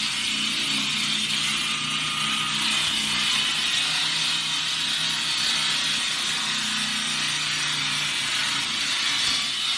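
Concrete saw with a large water-fed diamond blade cutting steadily into a concrete slab: an even high grinding hiss over a low, steady motor hum.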